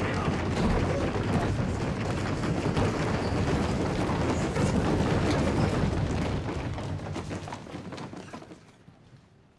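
Dense sword-fight sound effects: men yelling, katanas swishing and blows landing in quick succession, fading away over the last couple of seconds.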